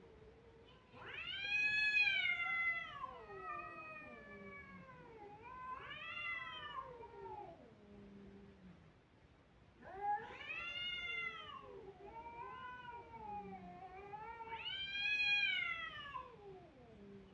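Domestic cats caterwauling at each other in a standoff: long drawn-out yowls that swell up in pitch and sink back down. They come in two long bouts, each loudest near its start, and the second rises again near the end.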